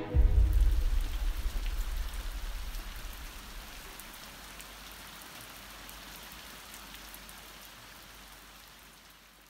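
Steady rain, with a deep rumble loudest in the first second, the whole sound slowly fading out.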